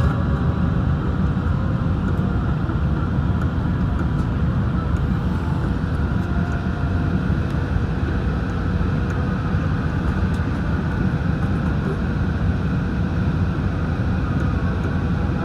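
Steady low rumble of jet airliner engines, with a faint constant whine above it and no rise or fall in level.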